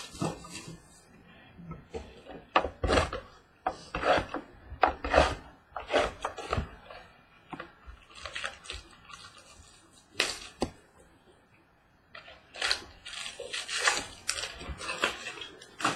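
Handling a box of trading cards: irregular crinkling, rustling and sharp clicks of cardboard and wrapper as the box is opened. A quieter pause comes a little past halfway.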